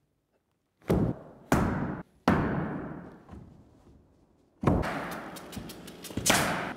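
A run of heavy wooden thuds, five loud ones and a few lighter knocks, each echoing on: OSB subfloor panels being set down and knocked into place on the floor joists.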